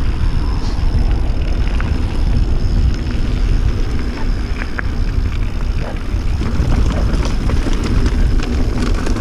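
Wind buffeting the camera microphone over the rumble of a mountain bike's tyres rolling fast down a loose gravel track, with scattered small clicks and rattles.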